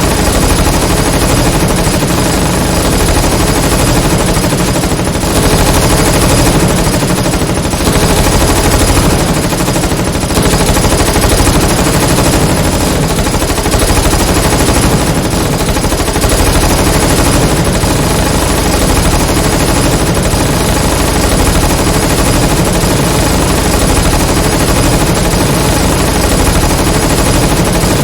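Dense, continuous submachine gun fire from several guns, with rapid bursts overlapping into a steady loud clatter of battle gunfire.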